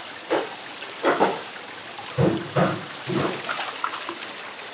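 Water running and trickling over a live-fish tank. About six short, loud splashes and knocks come in the first three seconds or so, as fish are netted out of the tank into a plastic basket.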